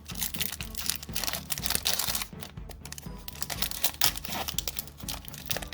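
Foil Pokémon booster pack wrapper crinkling and tearing open, a dense run of irregular crackles.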